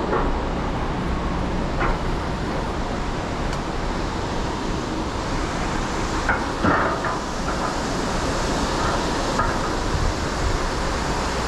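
Harness trolley wheels rolling along the overhead steel tube rail of a Fly Line ride, a steady rolling rumble with a few short clacks, about 2 s in and a cluster around 6 to 7 s in.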